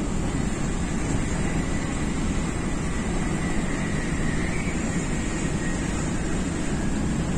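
MTR K-Train electric multiple unit running at speed: a steady rumble of wheels on rail and car body, with a faint thin high tone in the middle.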